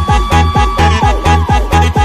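Music with a fast, steady kick-drum beat, about four beats a second, and a held high tone through most of it.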